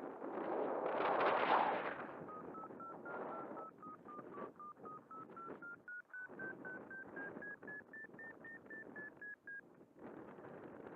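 Wind buffeting the microphone, then a variometer beeping about four times a second. Its pitch dips, then climbs steadily before easing slightly near the end; a rising pitch signals the glider climbing in lift.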